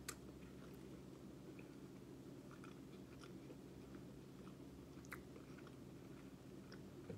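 Faint close-up chewing of a burger, soft mouth clicks and smacks, with one sharper click near the start and another about five seconds in, over a low steady hum.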